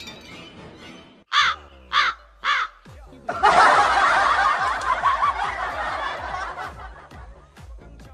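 Dubbed laughter sound effect: three short snickers about half a second apart, then a longer stretch of laughter lasting about four seconds.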